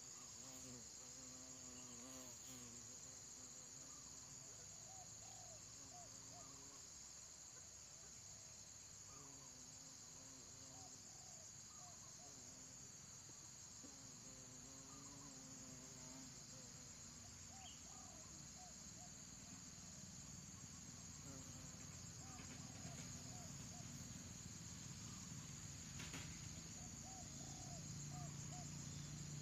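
Steady high-pitched buzzing of an insect chorus, with faint low pitched sounds coming and going in short bursts underneath.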